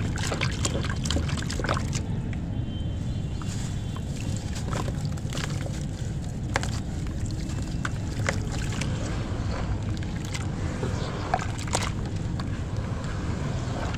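Hands squeezing and crumbling lumps of dry sand into a basin of water, and swishing the water: wet sloshing with many small crunches and crackles, over a steady low rumble.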